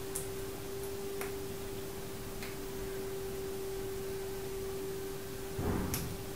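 A steady faint tone at one pitch, with a few faint small clicks spaced about a second apart and a brief soft rustle near the end, as small BNC connector parts are handled on a coax cable.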